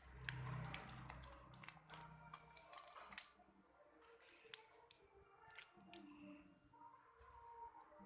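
Slime being handled, making sticky clicks and crackles: a dense run in the first three seconds, then scattered clicks.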